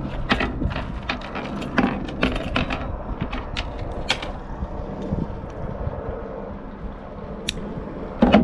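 Small metal clicks and clinks of fishing tackle being handled: a circle hook, barrel and snap swivels and steel pliers, rapid in the first few seconds and sparser after, with one louder knock near the end.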